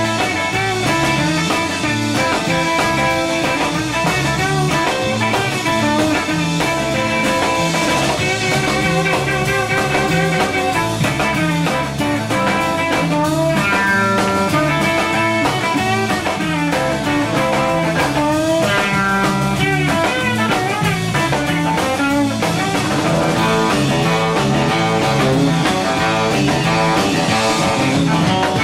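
Instrumental surf rock played live by a band: electric guitars carrying the melody over bass guitar and drums, loud and continuous.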